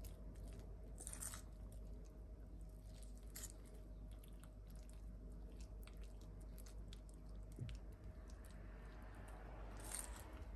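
Wire whisk gently folding feta cubes into a thick egg-and-oil batter in a stainless steel bowl: faint wet squelching with light clicks, and a few louder scrapes of the wire against the metal.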